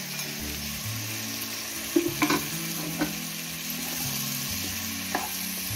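Onion, capsicum, tomato and boiled sweetcorn sizzling in oil in a wok as the sweetcorn goes in and the vegetables are stirred with a spatula. A quick cluster of sharp knocks on the pan comes about two seconds in, with single knocks near three and five seconds.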